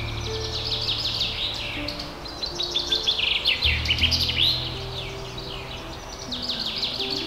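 Birds chirping and trilling in quick, high-pitched runs, busiest in the first half and again near the end, over soft background music of slow, held low notes.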